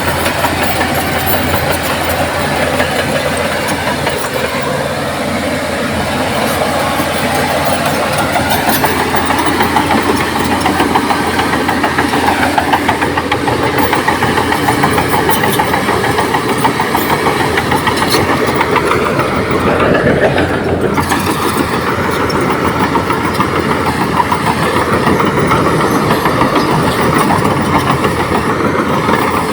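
Komatsu D58P crawler bulldozer's diesel engine running steadily and loudly while working. About twenty seconds in, the engine note rises and then briefly drops before settling back.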